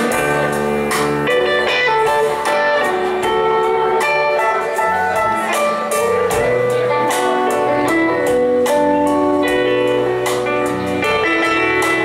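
Live band playing an instrumental passage: guitars over bass guitar and drums, with regular drum hits.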